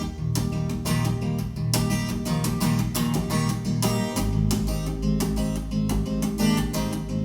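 Instrumental break of a song: rhythmic strummed acoustic guitar over a bass line, which drops deeper about four seconds in. It is played back through KEF LS50 bookshelf speakers driven by a Marantz PM6007 integrated amplifier.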